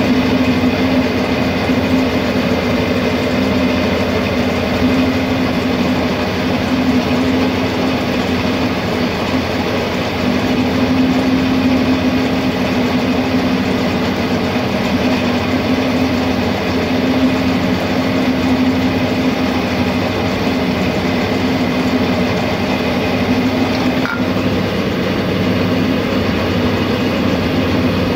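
Diesel pump test bench running with a steady hum, turning a rebuilt Toyota 2KD Denso common-rail high-pressure fuel pump on a bench test.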